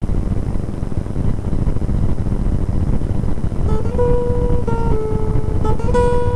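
Acoustic guitar picked one note at a time, the melody starting a few seconds in, over a steady low rumble that is loudest throughout.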